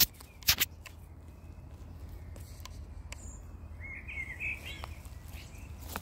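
A bird gives a short chirping call about four seconds in, over a steady low rumble. Two sharp knocks come just before that, in the first second, and they are the loudest sounds.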